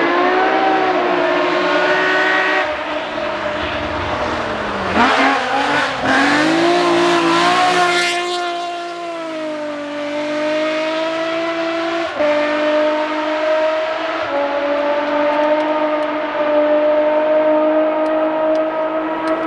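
BMW rally car engine on a gravel stage, loud throughout. It falls in pitch about four seconds in, then revs up hard. From about eight seconds it pulls away, its pitch climbing steadily with short gear-change steps about twelve and fourteen seconds in.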